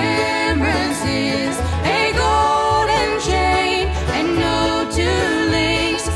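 Bluegrass song played live by a string band: voices singing over plucked strings, with a steady bass beat.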